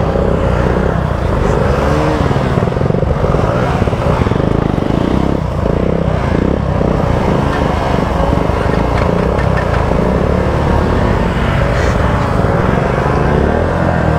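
Motorcycle engine revving up and down over and over as its rear wheel spins in muddy river water, throwing up spray: the bike is bogged down and struggling to pull out.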